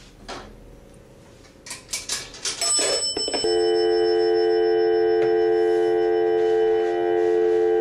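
Clicks and clatter from a Gray/Western Electric 50G three-slot payphone, with a brief bell-like ring from its coin mechanism. About three and a half seconds in, a loud steady telephone dial tone comes on and holds.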